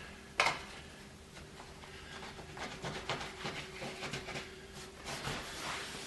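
A tack cloth wiped over the sanded wooden window sill to pick up the last dust before gluing: soft rubbing strokes, several in a row, with one sharp click about half a second in.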